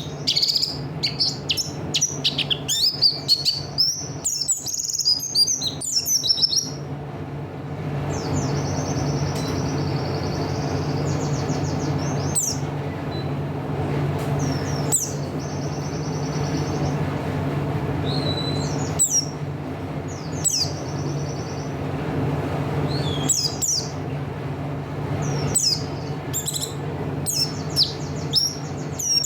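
A buxtoni white-eye (pleci) singing in lively bursts. Rapid high twittering in the first few seconds gives way to two long, rattling trills, then scattered sharp chirps and more twittering near the end.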